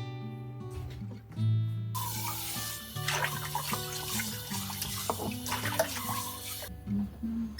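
A tap runs into a sink for about five seconds, starting about two seconds in and cutting off near the end, with a few light knocks, over background acoustic guitar music.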